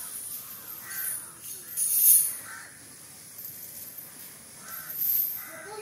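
Crows cawing several times, with a few short, high jingling sounds; the loudest comes about two seconds in.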